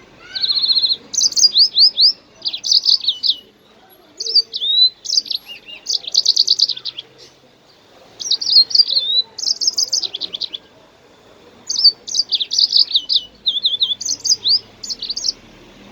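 A small songbird singing, the bird sold in Arabic bird circles as the 'jasmine bird': phrases of rapid, high, sweeping notes and short trills, repeated in bursts with brief pauses between them.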